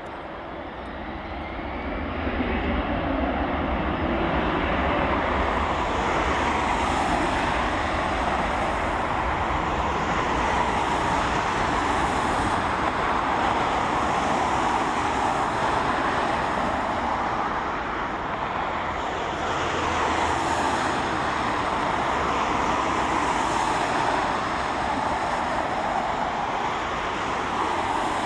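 Twin Pratt & Whitney PW4000 turbofans of an Airbus A330-223 airliner running at low thrust as it taxis: a steady jet engine noise with a low rumble, building over the first couple of seconds and then holding level.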